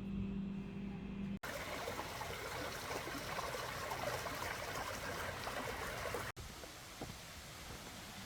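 Water running in a stream, an even rush for about five seconds. Before it comes a short, steady low hum, and after it a quieter, softer hiss.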